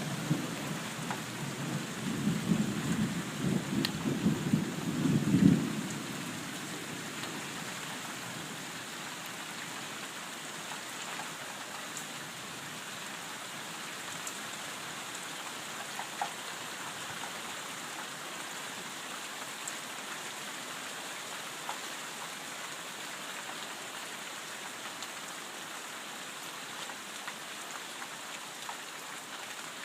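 Thunder rumbling low and rolling for the first five seconds or so, loudest just before it stops. Steady rain follows, with a few faint drips.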